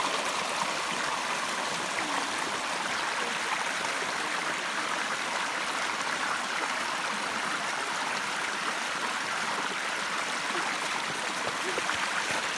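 A stream running steadily, an even wash of water noise.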